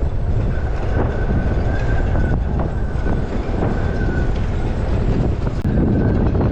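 Strong gusty wind buffeting the microphone, with a thin steady high whistle running through most of it.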